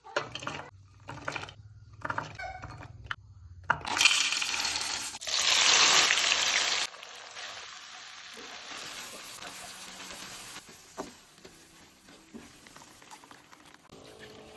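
Food frying in hot oil: a loud sizzle for about three seconds, then a quieter steady sizzle, after a few short cooking sounds cut together.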